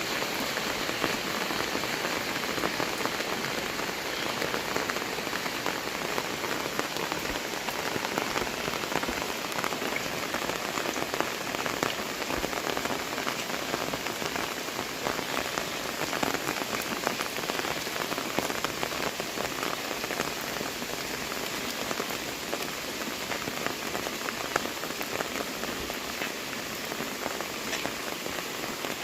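Heavy rain falling steadily, a dense mass of drops striking surfaces as countless small ticks.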